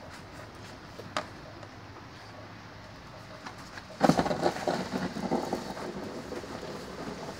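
Dense-pack cellulose insulation blowing through a hose into a wall cavity: a steady low rush, then about four seconds in a sudden, much louder crackling rush of air and fibre that slowly eases.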